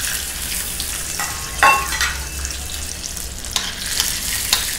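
Cashews sizzling as they fry in desi ghee in a black iron pan, a steady hiss. A steel spoon stirring them scrapes and clinks against the pan a few times.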